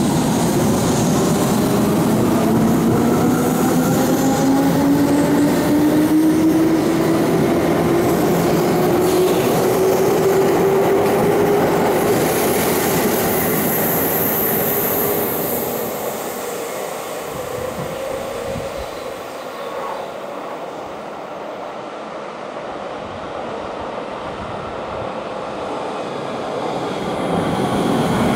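Electric commuter train pulling away from a station platform, its motors whining in a smooth rise in pitch over about twelve seconds as it speeds up, over rumbling wheels on the rails. The sound fades after about fifteen seconds, and near the end another train draws in and it grows loud again.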